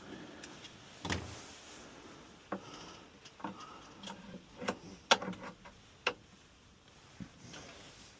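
Small hard objects being handled: a series of irregular clicks and light knocks, the sharpest about five seconds in.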